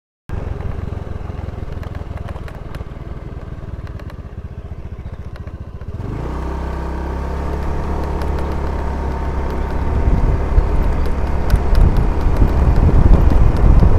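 Motor scooter engine running on the move, with wind rumbling on the microphone. About six seconds in the engine note comes through clearly, and the sound grows steadily louder, with more wind buffeting toward the end.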